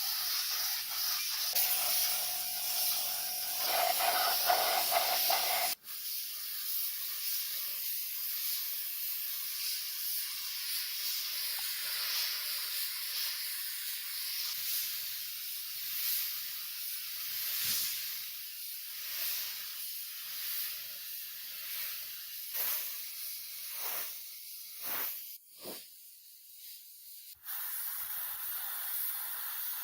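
Steady hiss of air spraying, cut abruptly twice, with a low hum under it in the first few seconds.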